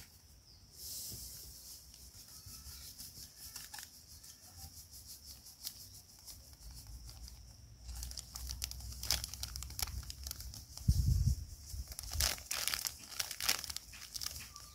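Crinkling and rustling of a plastic yeast sachet being handled and tipped, faint at first and more frequent from about eight seconds in, with one dull low thump a little after that.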